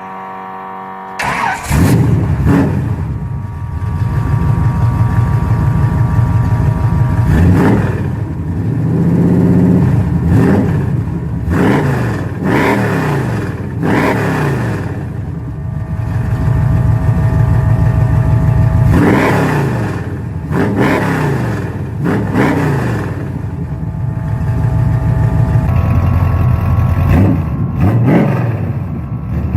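A small-block Chevy 350 V8 with a small Lunati cam and dual Spintech pro street mufflers starts about a second in. It then idles loudly and is blipped up and down over and over in short revs.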